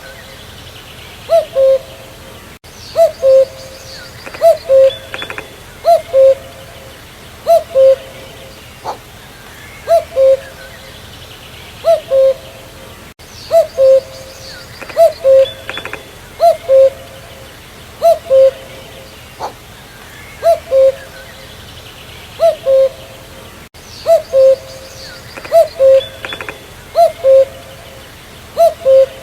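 Common cuckoo calling its two-note "cuck-oo", a higher note dropping to a lower one, repeated over and over about every one and a half seconds. Fainter chirps of other birds sound higher up in the background.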